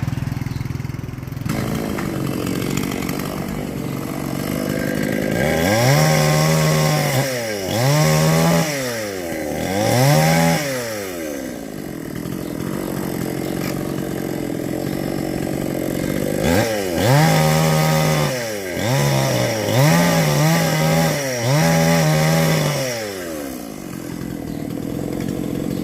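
Two-stroke chainsaw engine idling and revved up hard in short bursts, three times and then, after a pause at idle, four more times, each rev rising and dropping back.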